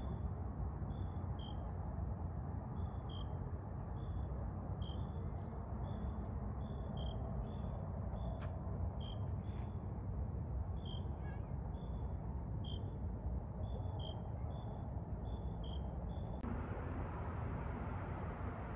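Steady outdoor rumble and hiss with a small creature's short high chirp repeating about twice a second. The chirping stops near the end as a broader hiss rises.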